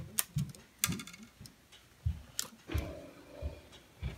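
Scattered sharp clicks and dull knocks of fingers working cable connectors loose from a MacBook Pro's logic board, with a brief rustle of handling in the middle.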